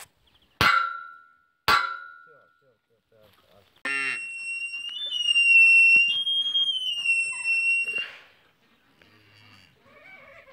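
Two ringing metal clangs about a second apart, steel pipe posts being struck, followed by a high steady squeal with small steps in pitch lasting about four seconds.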